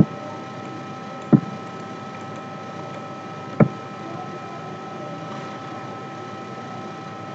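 Two short, sharp clicks of a computer mouse or keyboard, about two seconds apart, over a steady microphone hiss with a faint electrical hum.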